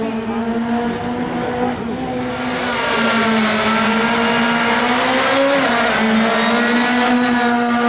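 Ford Fiesta rally car's engine held at high revs and pulling away hard from a stage start, getting louder and harsher about two and a half seconds in, its pitch dipping briefly and recovering around five and a half seconds in.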